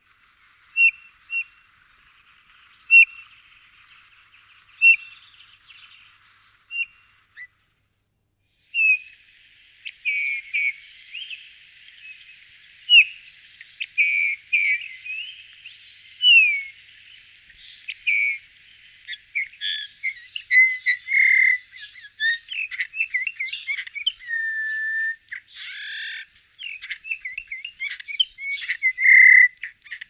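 Eurasian bullfinch calls and song. At first come sparse, short piping notes. After a brief pause, a denser warbling run of whistled slides and twitters follows, and it grows busier toward the end.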